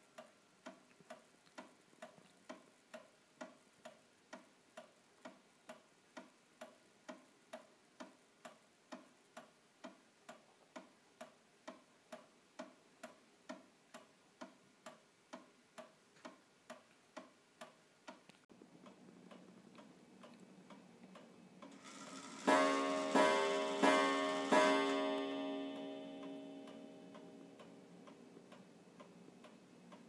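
Circa-1870 New Haven beehive clock's freshly cleaned and oiled movement ticking steadily, about two ticks a second. About three-quarters of the way through, the clock strikes four times, each blow ringing and fading away over a few seconds.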